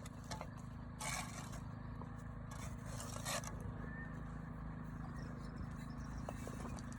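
Two short scrapes, one about a second in and one about three seconds in, over a steady low hum.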